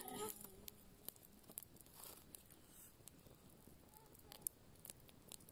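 Faint, sporadic crackling and popping of a burning wood campfire.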